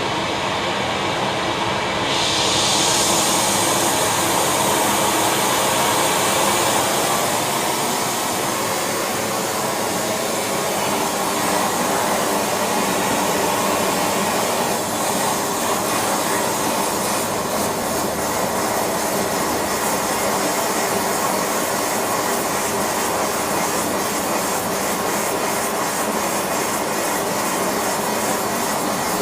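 Gas torch flame blowing steadily with a loud hiss, heating silver for a pour; the hiss turns brighter about two seconds in.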